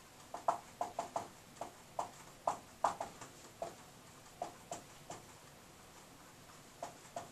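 Dry-erase marker writing on a whiteboard: an irregular run of short taps and ticks as the letters are stroked on, busiest for the first five seconds, with a couple more near the end.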